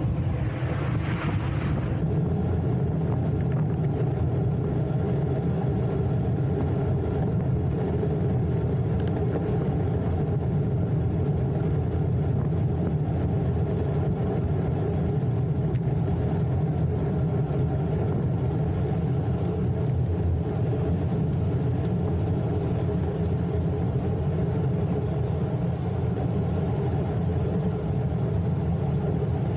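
Steady low rumble of wind on the microphone of a bicycle-mounted camera, mixed with tyre road noise as the road bike rides along. The noise changes briefly about two seconds in, then stays even.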